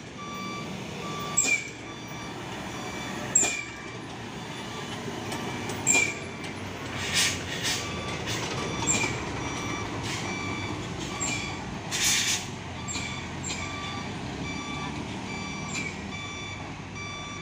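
Orange Mitsubishi Fuso 6x2 truck's diesel engine running under load on a steep climb, with a reversing alarm beeping steadily. Short hissing bursts, like air brakes releasing, come every second or two, the longest and loudest about twelve seconds in.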